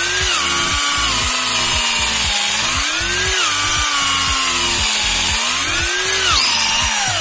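Electric hand drill boring into a metal clutch drum. Its motor whine rises and falls in pitch about every three seconds, then winds down with a falling whine near the end.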